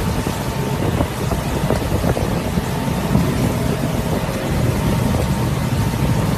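Motorboat engine running steadily at speed, a continuous low drone under wind buffeting the microphone.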